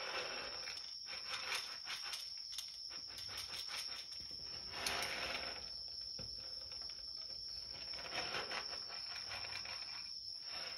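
Crickets chirping steadily in one high, unbroken note, over soft rustling and shuffling with a few light clicks.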